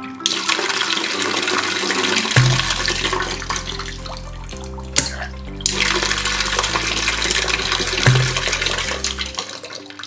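Water rushing out of a solenoid valve's pipe outlet while the valve is open. About halfway the flow breaks off briefly around a sharp click, then resumes and dies away near the end as the valve shuts. Background music plays underneath.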